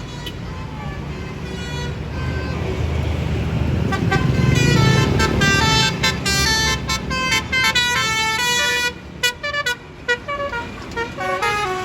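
A bus passes at close range, its engine rumble growing to a peak about four to five seconds in. From about four seconds in, its multi-tone telolet horn plays a quick tune of short notes jumping in pitch, breaking into separate short toots near the end.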